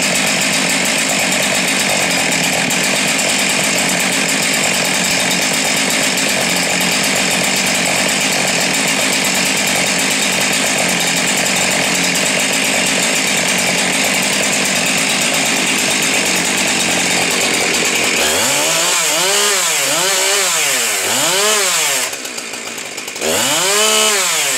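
Husqvarna 372 XP X-Torq two-stroke chainsaw running at steady high revs for about eighteen seconds. It is then blipped up and down about four times, falling back briefly near the end before a last rev.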